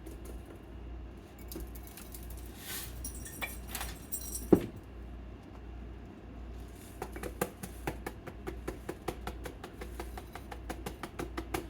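Mustard seed shaken from a shaker into glass jars: a dense run of quick clicks and rattles in the second half, after some clinking and one sharp knock about four and a half seconds in.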